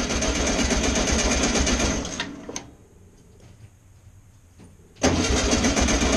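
Starter cranking a VW 1600 air-cooled flat-four engine on a first start attempt after fitting an electronic distributor. It cranks for about two seconds and stops, then cranks again about five seconds in.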